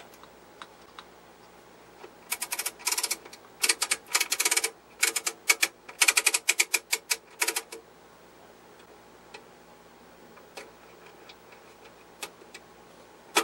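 Front-panel knobs and switches of a Tektronix 465 oscilloscope clicking as they are turned and set: quick runs of detent clicks for about five seconds, then a few single clicks.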